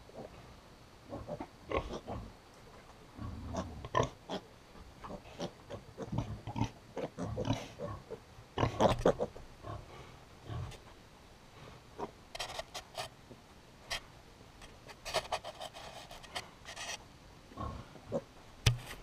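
Piglets grunting and sniffing right up against the microphone, with many short clicks and knocks of snouts bumping the camera, thickest in the second half. One louder grunt comes about nine seconds in.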